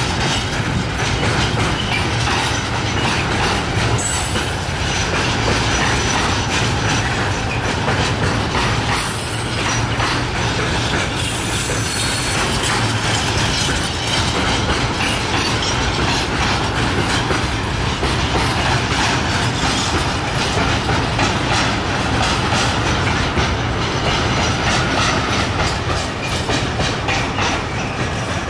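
Loaded intermodal freight wagons carrying semi-trailers rolling steadily past, a continuous low rumble with the rhythmic clickety-clack of wheels over rail joints.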